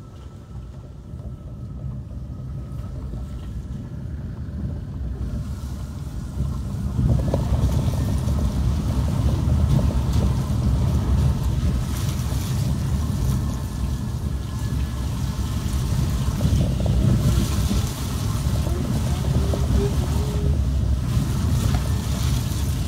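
Low, unsteady rumble of wind buffeting the microphone over a car driving on wet streets, growing louder about seven seconds in.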